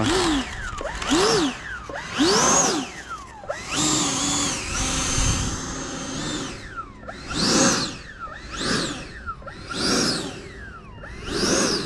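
Electric ducted fan of an E-flite Viper 90 mm RC jet spooling up and down in quick throttle blips, a rising and falling whine about once a second, with one longer steady run at held throttle a few seconds in.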